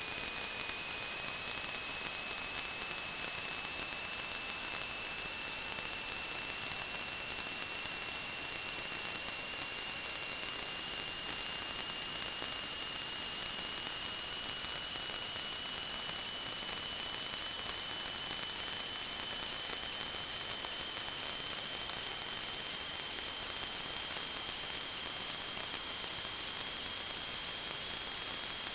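Steady high-pitched whistling over a hiss, typical of water forced through a restriction in plumbing, several tones sounding at once, one of them slowly rising in pitch.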